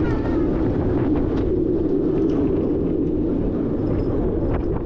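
Wind rushing over the microphone and the steady rumble of a Premier Rides multi-launch steel roller coaster train running on its track, with a few faint clicks.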